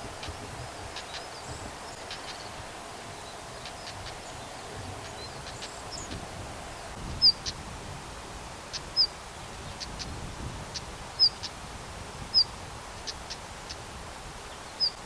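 Siberian stonechat calling: dry, clicking tack notes throughout, joined from about halfway by five short, sharp falling whistles spaced a second or two apart.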